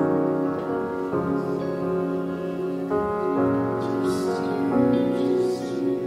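Slow, soft worship music on a keyboard: sustained chords that change every second or so.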